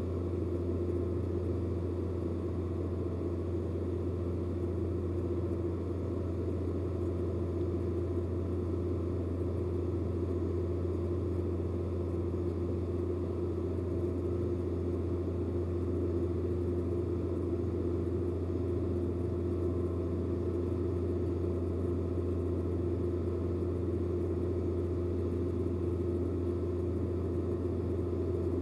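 A steady, unchanging low mechanical drone with several held tones above it.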